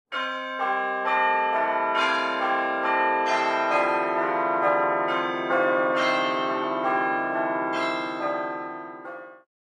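Bell-like chimes: struck notes about every half second, each ringing on and building up into a layered chord. They fade out and stop near the end.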